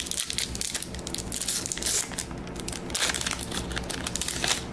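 Trading card pack wrapper crinkling and crackling irregularly as it is torn open by hand.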